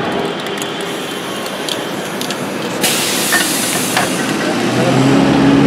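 Aerosol spray-paint can hissing in one burst of about a second, starting about three seconds in, over steady street traffic noise.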